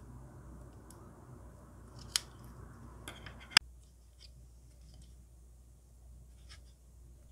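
Scissors cutting masking tape wrapped on a small plastic model-kit part: sharp snips about two seconds in and again at about three and a half seconds, over faint rustling of tape and plastic being handled.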